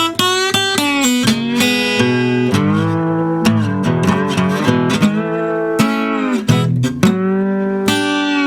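Flat-top acoustic guitar played with a brass tube slide: plucked notes, several gliding up or down in pitch into the next, with a little bit of a warmer tone.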